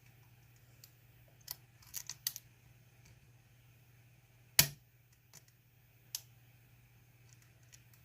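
Scattered small metallic clicks of lockpicking tools working the pins of a GEGE six-pin euro cylinder, a cluster about two seconds in and one louder click at about four and a half seconds, over a faint steady low hum.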